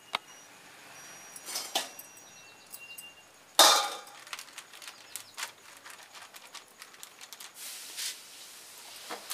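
Metal kitchen utensils clinking: a perforated slotted spoon knocking against an iron kadai and a steel bowl, with one loud ringing clank about three and a half seconds in as the fried fritters go into the steel bowl. Light crinkling of a plastic sheet near the end.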